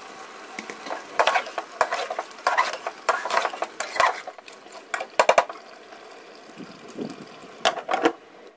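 A metal spoon stirring and scraping a thick chicken curry in a metal pot, in a run of clattering strokes. Near the end a glass pot lid is set down on the pot with a short clatter.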